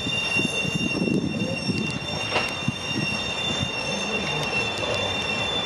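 A string of Caltrain Nippon Sharyo Gallery bilevel coaches rolling by on steel wheels, with a steady high-pitched wheel squeal over a low rumble and a few sharp clicks.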